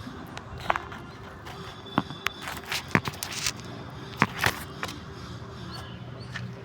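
A handful of sharp, irregularly spaced knocks and clanks, the busiest stretch a little under halfway through, over a steady low hum.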